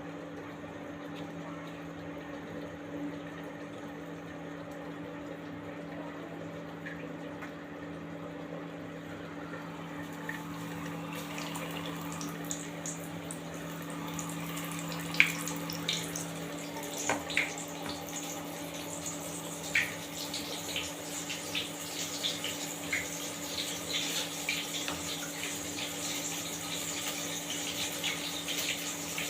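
Water running from a kitchen tap into a sink, getting fuller about a third of the way in, with sharp clinks and knocks of things being handled in the sink from about halfway. A steady low hum runs underneath.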